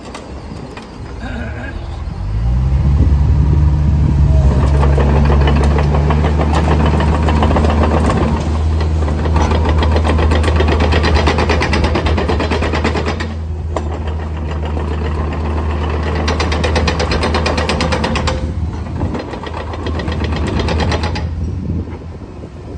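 Caterpillar 306 CR mini excavator's diesel engine starting about two seconds in, its pitch rising as it settles into a steady run. Over it come long stretches of louder mechanical noise that drop away briefly twice and ease near the end.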